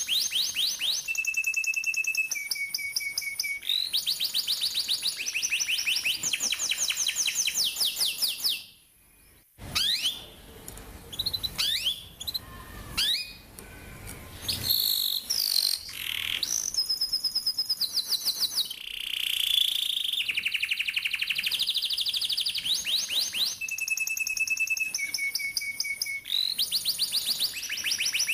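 Domestic canary singing a long rolling song: very fast trills of repeated high notes alternating with short held whistled tones. About nine seconds in, the song breaks off briefly and resumes with looser sliding chirps before the rapid trills return.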